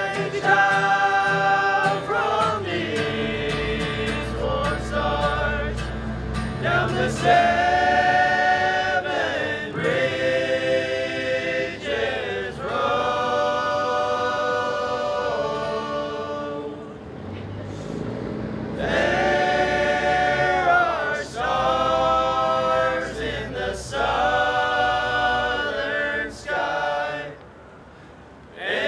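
Men's vocal ensemble singing in multi-part close harmony, in long phrases with short breaks between them and a brief pause near the end.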